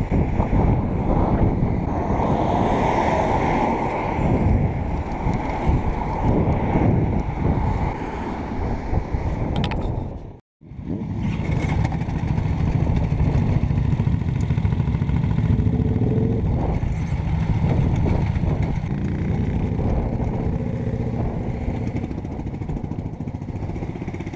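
Motorcycle engines running, with road noise and wind on the microphone. After a brief dropout about ten seconds in, a cruiser motorcycle's engine runs steadily close by, other motorcycles around it.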